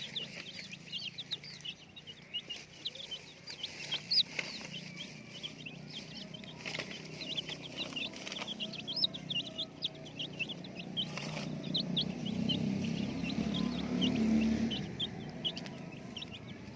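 A flock of baby chicks peeping continuously: many short, high chirps overlapping one another. A low hum runs underneath and grows louder for a few seconds in the second half.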